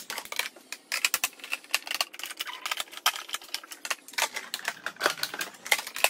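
Makeup compacts and powder jars clicking and clattering against each other as they are set down and shuffled into a vanity drawer: many small, irregular sharp taps.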